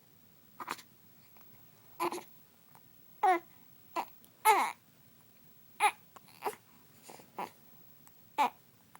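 Baby hiccupping over and over, about ten short, sharp voiced squeaks spaced irregularly, roughly a second apart, with some fussy, crying-like sounds among them.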